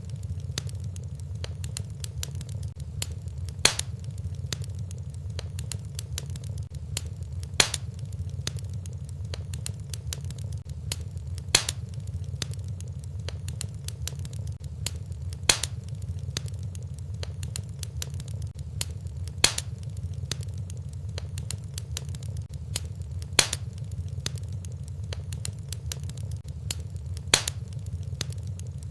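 Fireplace fire crackling over a steady low rumble, with many small ticks and a louder sharp pop about every four seconds.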